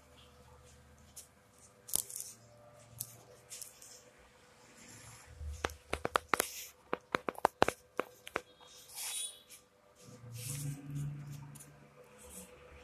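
Handling noise: sharp clicks and rustling as a phone is moved about, with a quick run of about a dozen clicks in the middle and a faint steady hum.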